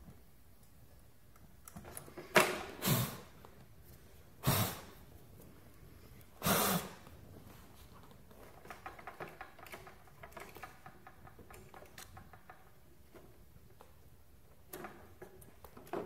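Brazing torch flame hissing faintly while it heats copper refrigerant tubing joints on a dehumidifier coil, with several short, loud bursts of noise in the first seven seconds.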